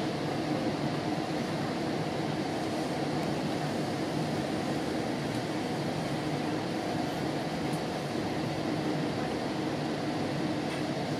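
Steady running noise heard from inside a moving GO Transit commuter train coach: the low, even noise of the wheels on the track and the coach at speed, with no change in level.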